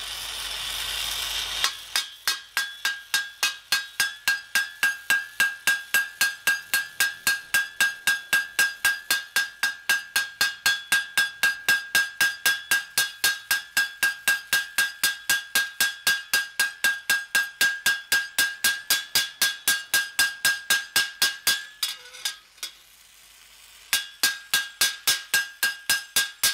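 Hammer peening a hot steel rivet on an anvil: fast, regular blows, about four a second, each with a high ringing tone from the steel. A brief rising hiss comes before the blows start, and they pause for about two seconds near the end before resuming.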